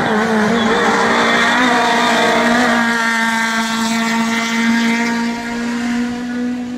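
Hillclimb rally car engine at high revs, holding one steady note. For the first three seconds a rushing noise runs under it, which then fades.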